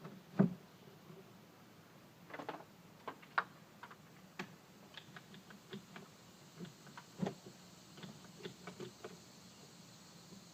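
Scattered light knocks, taps and clicks as a soffit panel is handled and pushed into place, with a sharper knock about half a second in and another about seven seconds in.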